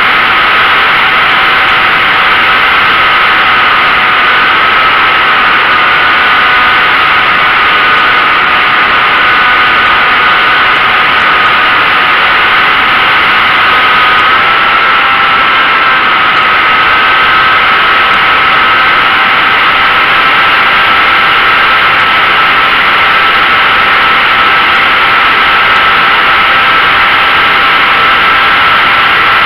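RC model plane's motor and propeller running in flight, heard from a camera on the airframe: a steady high whine over loud rushing airflow, the pitch shifting slightly a couple of times.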